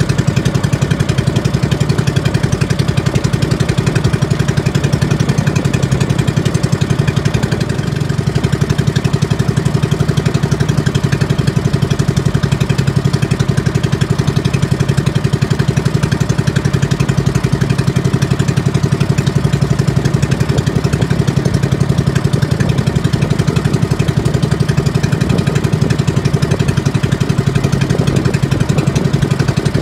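Small engine of a motorized outrigger fishing boat running steadily with an even, rapid pulse, with no change in speed.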